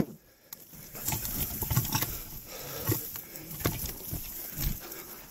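Irregular knocks, clicks and rustling of footsteps and a mountain bike being pushed and manhandled over rough, overgrown ground.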